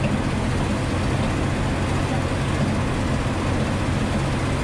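Cab interior of an M936A2 military 6x6 wrecker under way. The Cummins 6CTA8.3 turbo-diesel runs steadily with a low drone and road and cab noise, with no shifts or bangs, through its newly replaced muffler.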